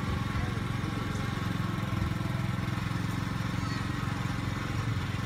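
An engine running steadily nearby, a low, even drone that does not change.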